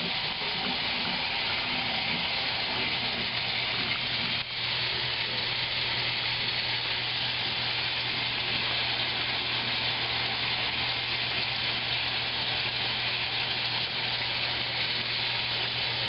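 A 1955 Blackstone washing machine running: a steady hiss with a low, even motor hum underneath.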